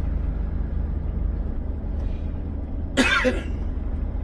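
Steady low drone of a Volvo FH truck's diesel engine heard inside the cab. About three seconds in, a man coughs once, briefly, the loudest sound here.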